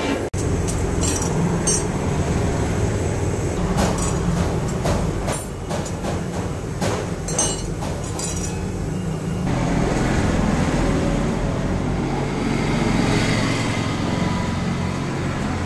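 Gas burner running with a steady low rumble under an iron kadai, the hot mixture in it bubbling with frequent sharp pops and crackles; about halfway through the crackling gives way to a smoother hiss.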